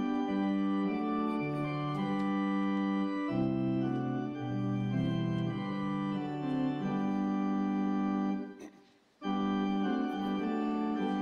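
Church organ playing the gathering hymn in sustained chords that change every second or so. It breaks off briefly about nine seconds in, then starts again.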